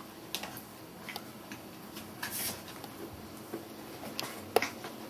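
Scattered light clicks and rustles from Border Collie puppies scampering about on the floor, with a short hissing rustle about halfway through and one sharper knock near the end.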